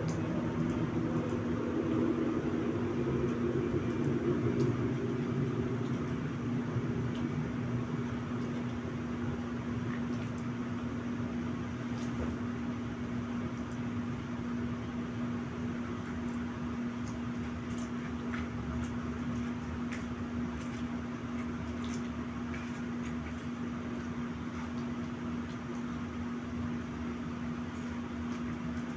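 A steady mechanical hum with one constant tone, a little louder in the first few seconds, over faint scattered clicks and chewing from someone eating with chopsticks out of plastic food trays.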